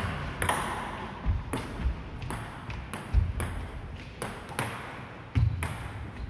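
Table tennis balls clicking off bats, the table and the wooden floor, the clicks echoing in the sports hall, with a few dull thuds among them.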